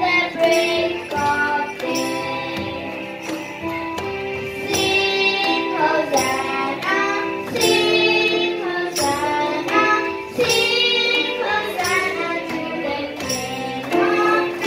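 A young girl singing a devotional song into a microphone, accompanied by an electronic keyboard holding long steady notes beneath her voice.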